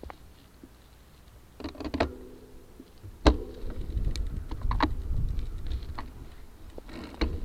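Bicycle clicking and rattling, with a hard knock about three seconds in, after which a low rumble with scattered rattles sets in, as of a gravel bike rolling over rough ground.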